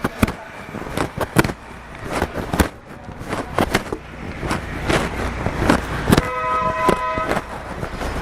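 City street noise: the rumble of traffic with many sharp clicks and knocks. About six seconds in, a steady pitched tone sounds for about a second.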